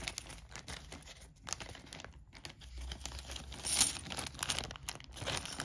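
Plastic bag crinkling and rustling as it is handled, with many small irregular clicks and a louder crackle a little before four seconds in.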